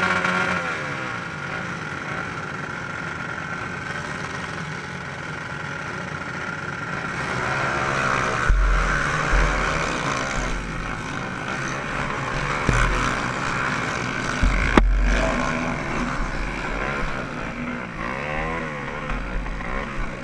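Several small 125–200 cc dirt bike engines revving at the start line. About eight seconds in, the pack pulls away and the onboard bike's engine runs hard over a rough dirt track, with wind buffeting and sharp knocks from the bumps.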